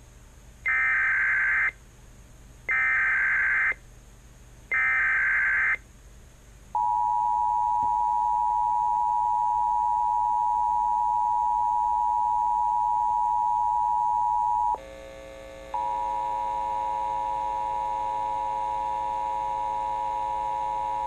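Emergency Alert System header: three one-second bursts of warbling digital data tones about a second apart, then the steady EAS two-tone attention signal for about eight seconds. After a short break a second, buzzier attention tone with many overtones starts.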